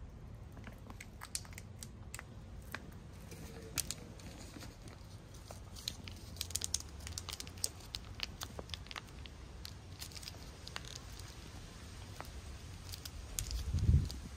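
Cat chewing and biting at a meat-stick treat held in its plastic wrapper: scattered small clicks and crinkles of the packet. A low thump near the end is the loudest sound.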